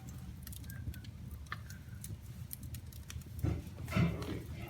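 Wood fire burning in a fireplace, crackling with scattered sharp pops over a low steady rumble. A voice is heard briefly near the end.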